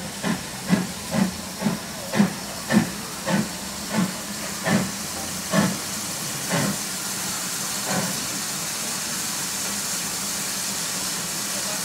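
Steam locomotives, the Ivatt Class 2MT tank engine 41241 leading a Black 5, chuffing as they work the train, about a dozen sharp exhaust beats, about two a second at first, then spacing out and fading. A steady steam hiss grows louder toward the end.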